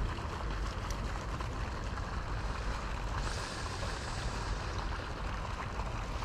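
Steady rush of moving water with a deep rumble beneath it. A brighter hiss swells up suddenly about three seconds in and fades over the next second or two.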